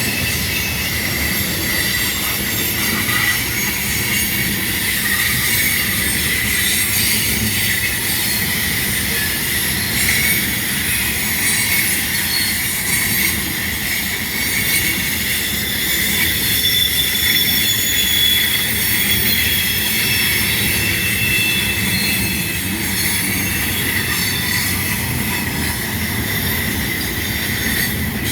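Loaded coal train's cars rolling past with a steady rumble, steel wheels squealing against the rail in thin high tones that waver.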